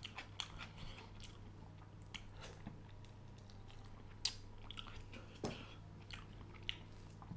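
Close-up mouth sounds of a man eating fish curry with rice: soft chewing, smacks and small clicks, with a few louder ones about four, five and a half and nearly seven seconds in. A low steady hum lies underneath.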